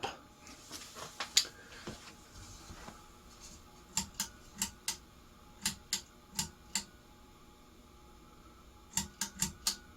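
About a dozen sharp clicks in three quick bunches from a ceiling fan's speed switch being clicked through its settings. The medium speed is not working.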